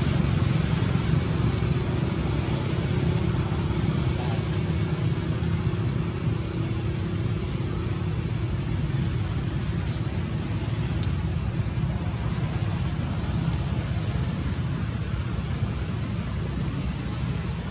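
Steady low rumble of outdoor background noise, with a faint held hum that fades out about halfway through and a few brief high chirps.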